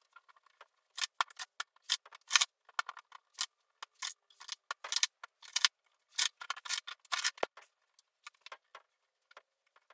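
Scissors snipping in a quick, irregular run of short crisp cuts with brief pauses. The cuts are fewer and fainter near the end.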